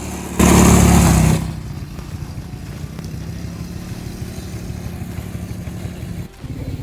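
ATV engine running steadily, with a loud rush of noise lasting about a second near the start.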